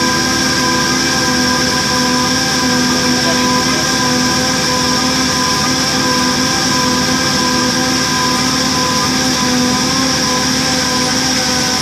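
Line boring machine running steadily as its cutter bores through an engine block, a constant hum with a high, even whine.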